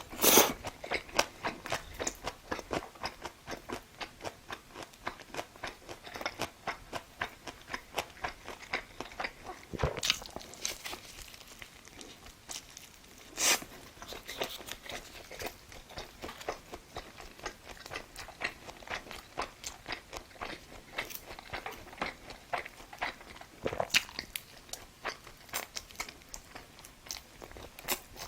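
A person chewing food, crunching at a steady pace of a few chews a second, with a handful of louder bites standing out.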